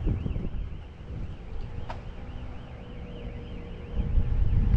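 A high electronic alarm warbling rapidly up and down, about three times a second, stopping shortly before the end. Under it, wind buffets the microphone in low gusts, loudest at the start and near the end.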